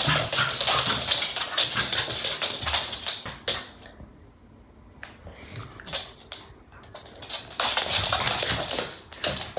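Two Pembroke Welsh corgis playing rough: their claws clatter in quick, dense runs of clicks on the laminate floor, with dog noises mixed in. The clattering eases off for a couple of seconds in the middle, then starts up again near the end.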